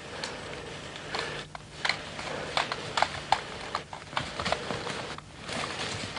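Footsteps and rustling through forest undergrowth as several people move through leaves, ferns and branches, with irregular short crackles and knocks.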